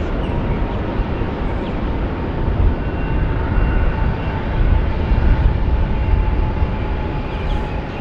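Jet airliner engines: a steady, loud low rumble with a faint steady whine running through it.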